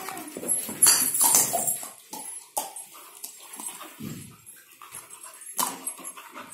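Black Labrador playing with a plastic toy: irregular scuffling and sharp knocks of the toy and paws on a tiled floor, with short dog sounds in between. The loudest knocks come about a second in and again near the end.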